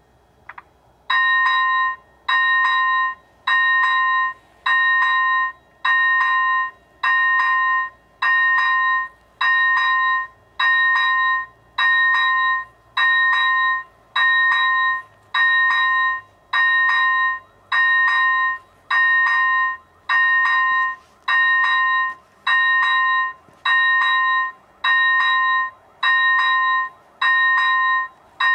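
ZV-01 electronic level-crossing bell ringing: an even repeated ding-tone, about once every 1.2 seconds, starting about a second in. It is the crossing's warning that a train is approaching and the barriers are about to come down.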